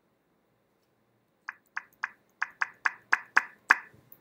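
A computer's volume-change feedback sound: about nine short pops in quick succession, roughly four a second, each marking one step as the system volume is adjusted.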